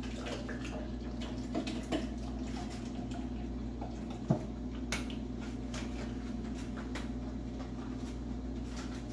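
Guava juice pouring from a carton into a stainless steel cocktail shaker, with scattered faint clicks, a sharp knock about four seconds in and a click about a second later, over a steady low hum.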